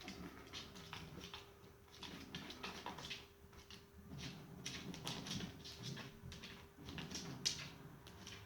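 Faint, irregular rustling and shuffling from two domestic cats moving against each other as one mounts the other, with a sharper knock about seven and a half seconds in.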